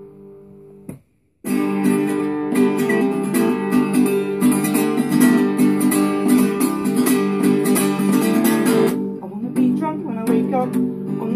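Acoustic guitar strummed rhythmically, quiet at first, with a brief cutout about a second in, then loud and steady. Near the end the strumming lightens and a man's voice starts singing.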